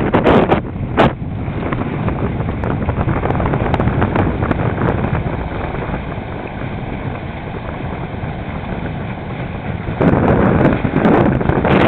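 Wind buffeting the microphone over water rushing along the hulls of a Newick 26 trimaran under sail. The wind hits hardest in gusts in the first second and grows louder again from about ten seconds in.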